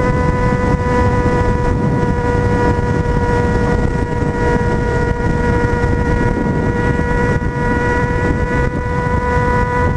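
Yamaha XJ6's 600 cc inline-four engine running at steady revs while cruising, a held, even engine note, with wind rushing over the microphone.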